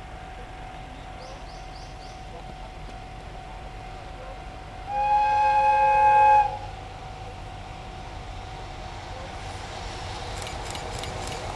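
EF66 electric locomotive sounding its whistle in one blast of about a second and a half, some five seconds in, as it approaches hauling a container freight train. The train's running noise then grows steadily louder, with a few sharp clicks near the end.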